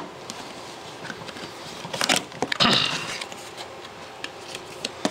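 Handling of a cardboard graphics-card box: a few light knocks and a scrape of cardboard as its top flap is opened, loudest about two to three seconds in.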